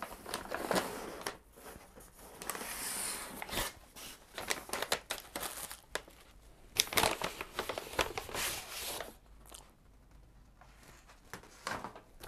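Cardboard packaging rustling, crinkling and scraping as a flat cardboard package is pulled out of a shipping box and handled, with short knocks and clicks of handling. The rustling thins out over the last few seconds.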